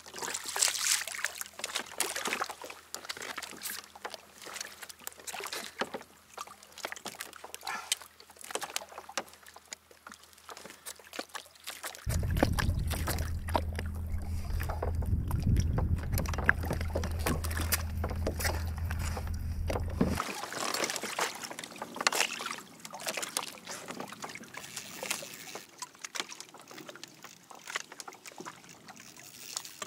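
Water sloshing and trickling around a kayak, with scattered knocks and splashes. About twelve seconds in, a steady low hum starts suddenly, runs for about eight seconds and cuts off.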